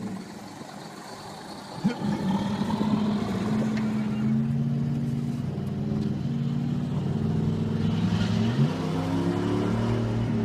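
Semi-truck's diesel engine pulling on the highway, a steady low drone whose pitch holds for several seconds at a time, climbs about eight and a half seconds in and drops near the end. A sharp knock sounds about two seconds in.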